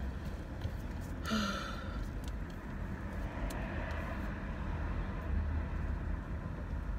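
Car cabin noise while driving slowly: a steady low engine and road rumble, with one brief high-pitched sound about a second in.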